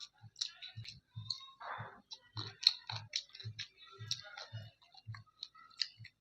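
A person chewing food with wet mouth smacks and clicks, in a steady rhythm of about two to three chews a second.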